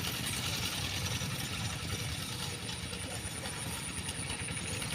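Old tractor engine running steadily.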